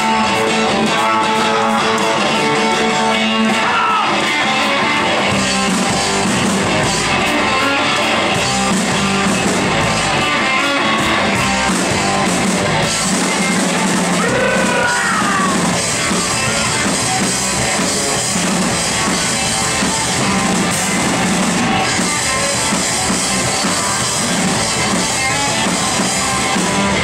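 Live rock band playing a fast number, with electric guitar and drum kit.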